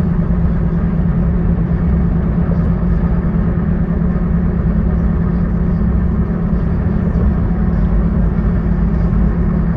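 Steady road rumble and engine noise of a car driving on a highway, heard from inside the moving vehicle, with a constant low drone and no distinct events.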